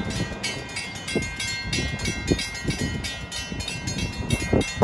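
Railroad grade-crossing warning bell ringing rapidly and evenly, about four to five strikes a second, as the crossing signals flash for an approaching train. Irregular low rumbles run underneath.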